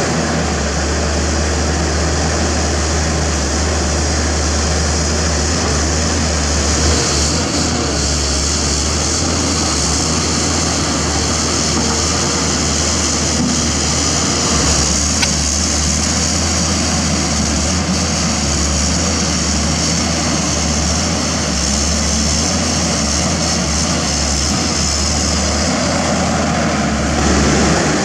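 Pindad Excava 200 excavator at work, its Deutz BF06M2012C diesel engine running steadily with a low hum. One sharp click about halfway through, and a brief swell in level near the end.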